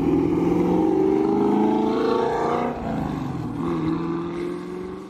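2016 Chevrolet Camaro SS's 6.2-litre V8 accelerating past, its engine note rising. The note drops briefly about two and a half seconds in, then climbs again and fades away near the end.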